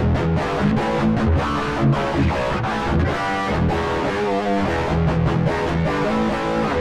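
Electric guitar played through a Korg AX3000G modeling processor on its SHRED DS distortion amp model, a continuous distorted riff with heavy low notes. The tone is the amp model's stock setting, a little muffled before the treble and mids are raised.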